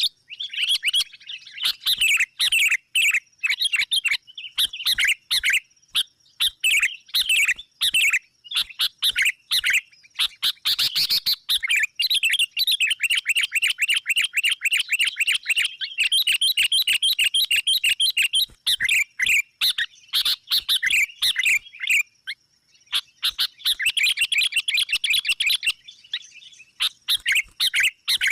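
Sooty-headed bulbuls calling loudly and busily: rapid chattering phrases broken by fast trills, with short pauses, used as a lure call to draw in rival bulbuls. A thin steady high tone runs underneath.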